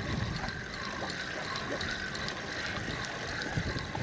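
Spinning reel being wound to retrieve a lure after a cast: a steady mechanical whirr with faint ticking, over the low wash of water and light wind.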